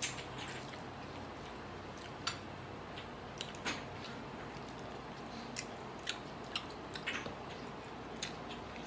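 A man chewing and eating grilled chicken by hand, with scattered short wet mouth smacks and clicks.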